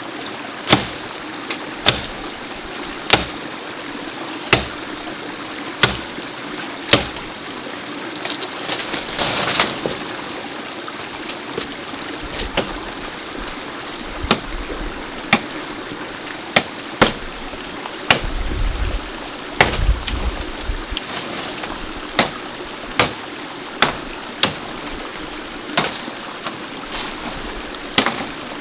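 Mountain stream flowing steadily, with sharp knocks repeating about once a second over it.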